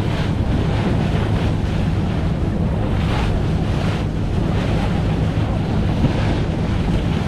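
Wind buffeting the microphone over water washing and splashing against a boat's hull, a loud steady noise.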